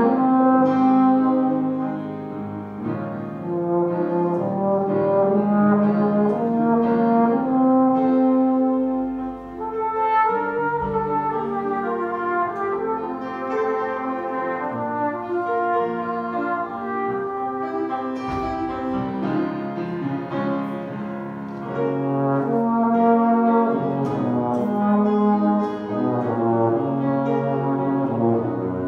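Flugelhorn and euphonium playing a duet, two brass lines moving in held notes together.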